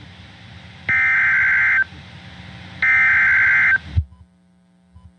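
Emergency Alert System SAME data tones: two short bursts of shrill, warbling digital tones, each about a second long, with radio static hissing between them. The static cuts off about 4 seconds in, leaving a faint low hum.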